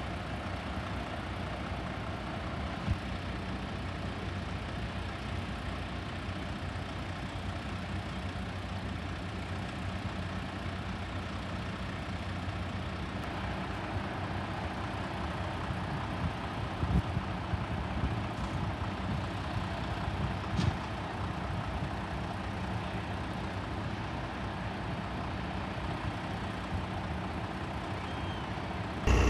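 An engine idling steadily, a low even hum, with a few short knocks.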